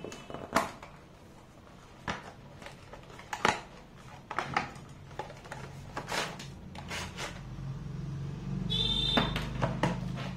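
Cardboard box and plastic packaging being handled and opened: a series of sharp clicks and taps, then a louder rubbing in the last few seconds, with a brief squeak, as the plastic tray slides out of the cardboard box.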